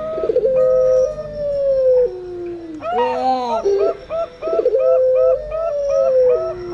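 Doves cooing: a puter pelung dove's long, drawn-out coo, held and then falling in pitch in steps, mixed with zebra doves (perkutut) cooing in quick strings of short, higher notes. The pattern comes round about every three seconds.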